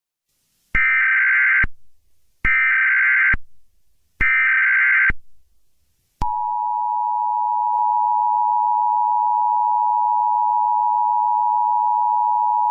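Emergency Alert System header: three bursts of screeching digital data tones, each about a second long with short gaps between them. About six seconds in, the EAS attention signal follows, a steady, harsh two-tone alarm that holds to the end.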